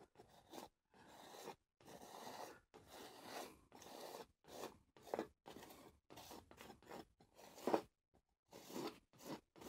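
Palette knife scraping oil paint onto a stretched canvas in short, faint strokes, one or two a second with brief pauses between.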